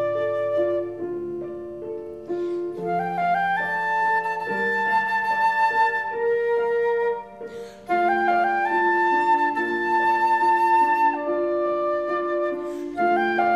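Concert flute playing a classical melody of held and stepping notes, accompanied by a grand piano. The flute breaks off briefly about seven seconds in, then picks up again.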